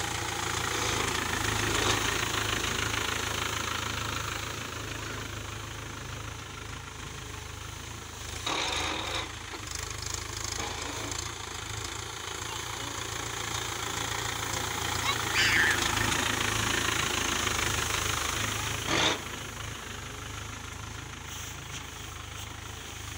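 Mahindra 475 DI tractor's diesel engine running steadily as the tractor drives over a heap of straw, with a couple of short knocks, about eight and nineteen seconds in.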